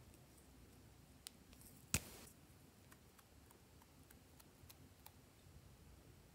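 Small plastic glitter bottle being handled in near quiet: a light click, then a sharp plastic click about two seconds in as its cap comes off. A handful of faint ticks follow as its tip is dabbed onto the slime.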